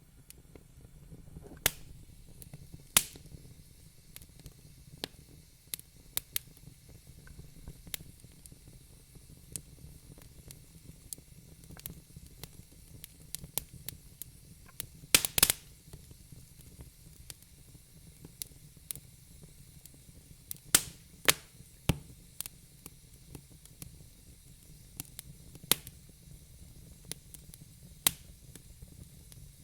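Wood fire burning in a fireplace, crackling with sharp pops at irregular intervals over a low steady rumble. The loudest pops come in a quick cluster about halfway through.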